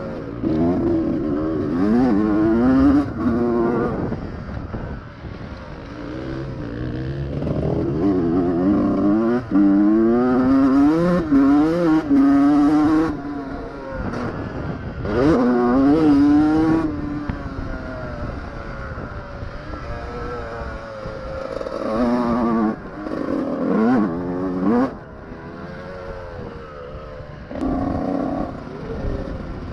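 Honda CR125R two-stroke single-cylinder motocross engine revving hard and backing off over and over, its pitch climbing steeply in each burst of throttle and then dropping sharply as the rider shifts or shuts off.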